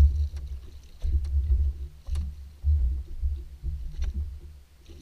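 Low rumbling of wind and water against the microphone on a jet ski at sea, coming in uneven surges with short lulls. A few faint clicks are heard.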